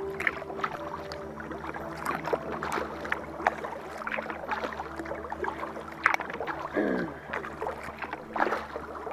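Kayak paddle strokes in calm water: the blades dipping and splashing with drips, a sharp splash every second or two over a steady wash of water.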